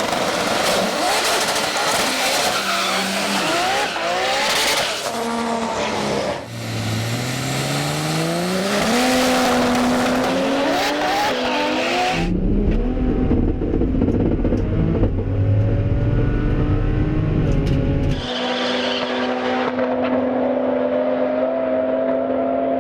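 Drag car engine at full throttle on a pass down the strip, its pitch climbing and stepping back down at each gear change. The sound changes abruptly about twelve seconds in and again near the end, settling into a steadier engine note.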